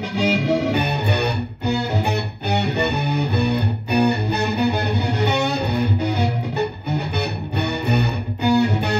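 Baritone electric guitar played through the Digitech Dirty Robot synth pedal and amp: a riff of short, low notes broken by several brief stops.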